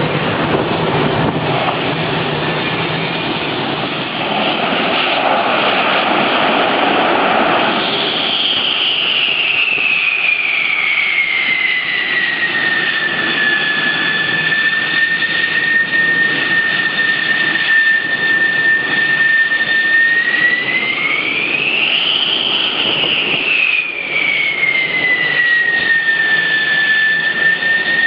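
Loud jet engine roar with a high whine that drops in pitch about a third of the way in, swells up again past the middle, and drops back near the end.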